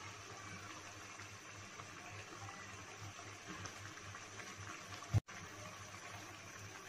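Okra and tomato masala simmering and sizzling faintly in a wok over a gas flame, with a thin stream of liquid being poured in at the start. A single sharp click about five seconds in.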